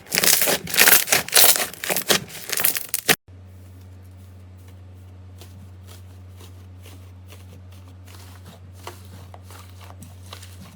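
Slime being squeezed and pulled by hand, giving dense, loud crinkling and crackling. About three seconds in it cuts off suddenly, leaving a quiet, steady low hum with a few faint soft clicks.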